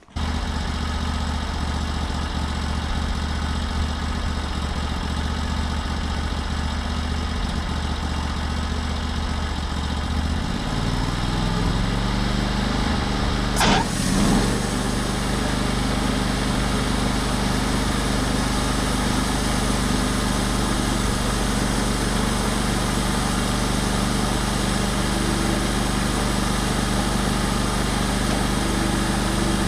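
Portable sawmill's engine running at idle, then revving up to a higher steady speed about eleven seconds in, with a short sharp sound just before fourteen seconds.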